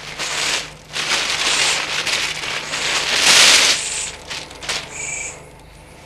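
Wrapping crinkling and rustling in someone's hands as a gift is unwrapped, loudest about three seconds in. A short bird call sounds about five seconds in.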